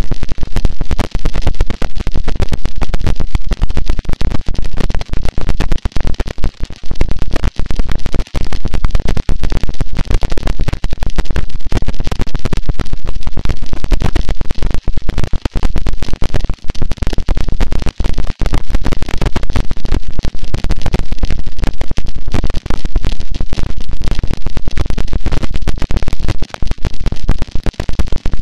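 Harsh noise wall: a loud, dense, unchanging mass of distorted static, heaviest in the low end and crackling with rapid split-second dropouts.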